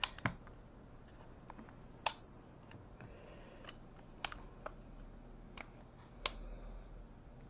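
Timber Creek ambidextrous safety selector in an AR-15 lower receiver being flipped between positions, its detent snapping into place with sharp, really loud clicks, about six of them spaced a second or two apart, with fainter ticks between.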